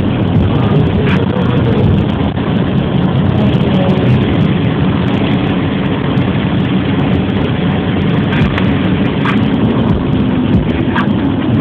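Loud, steady road and engine noise heard inside a moving car, with a few faint clicks scattered through it.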